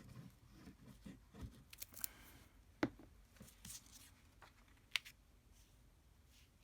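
Scissors cutting paper, a few faint snips with paper rustling; the two sharpest snips come about three and five seconds in.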